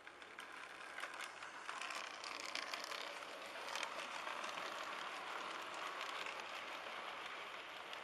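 Model steam locomotive and its Pullman coaches running past on model railway track: a steady electric-motor whirr with rapid irregular clicking of wheels over the rail joints. It grows louder over the first couple of seconds as the train nears.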